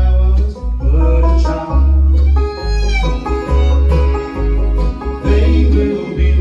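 Bluegrass band playing live in an instrumental passage: banjo, fiddle and acoustic guitar over bass notes that pulse about once a second.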